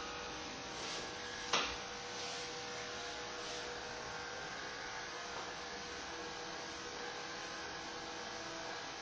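Electric hair clippers running with a steady hum, with one sharp click about a second and a half in.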